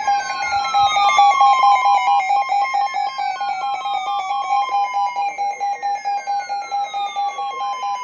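Emergency alert attention tones: a loud, rapidly pulsing steady tone overlaid with a whistle that falls in pitch and repeats about every three seconds, signalling the start of a new weather alert.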